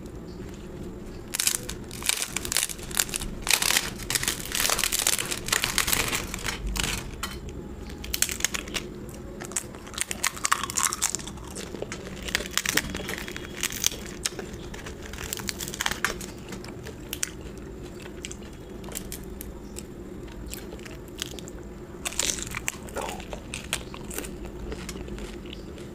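Close-up crunching and chewing of crisp food, in dense runs of crunches through the first half that thin out later, with another short run of crunches a little past the middle of the second half.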